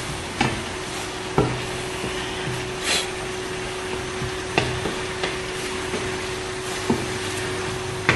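Wooden spatula stirring teriyaki sauce in a stainless steel pan over a steady sizzling simmer, with a few light knocks of the spatula against the pan at irregular intervals. A faint steady hum runs underneath.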